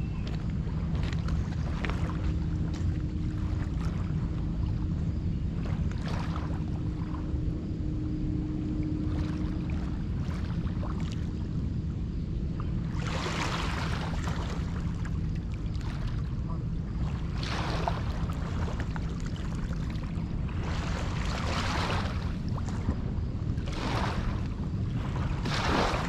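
Small lake waves washing onto a rocky shore, swelling every few seconds in the second half, over a steady low rumble of wind on the microphone. A faint steady hum runs under the first part.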